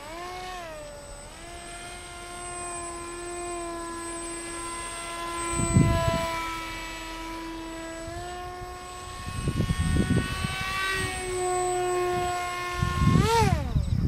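Electric motor and propeller of a small RC foam plane whining steadily, the pitch stepping up and down with throttle changes and swooping up then down sharply near the end as the plane passes close. Wind gusts buffet the microphone several times.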